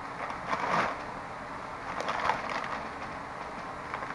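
A man sniffing twice into an open snack-chip bag held to his face, the plastic bag rustling in his hands.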